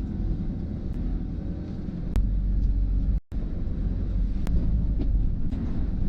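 Low, steady rumble of a small boat's engine running under way, cut off for a split second a little over three seconds in.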